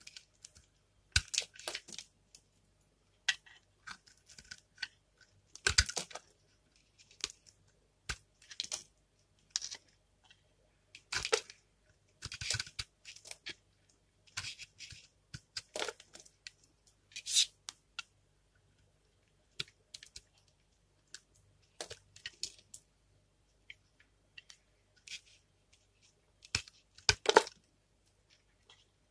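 A utility knife blade shaving thin flakes off a dry, hard bar of dark soap: irregular crisp scraping strokes, each under a second, with short pauses between.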